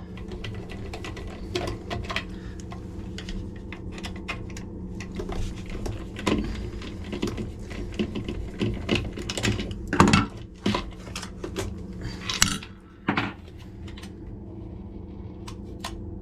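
Irregular clicks and small knocks of hand work on a motorised zone valve, its actuator head being taken off and the valve handled, over a steady low hum. A couple of louder knocks fall about two-thirds of the way in.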